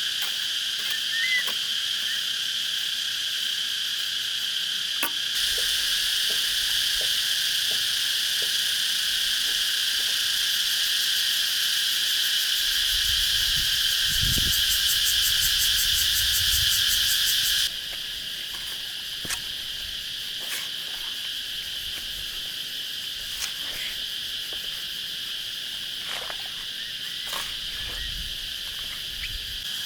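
Insects chorusing steadily in high shrill bands. A louder, fast-pulsing buzz joins about five seconds in and cuts off abruptly a little past halfway, with a few light clicks or taps scattered through.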